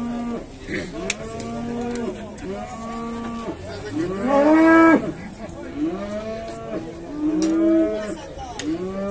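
Young cattle mooing one call after another, almost without a break, several animals overlapping. The loudest call, about four seconds in, rises higher in pitch than the rest.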